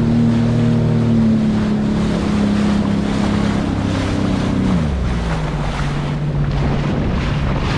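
2020 Sea-Doo Fish Pro jet ski running across open sea, its Rotax three-cylinder engine humming steadily and then dropping to a lower note about four to five seconds in as the craft slows. Water rushes and splashes off the hull, and wind buffets the microphone.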